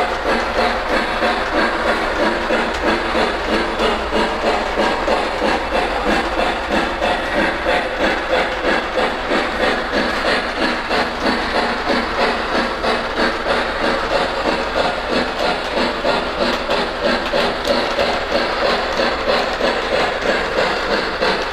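O-gauge Lionel LionChief Plus steam locomotive running, its onboard sound system playing a steady steam chuff of about three beats a second over the running noise of the train on the track.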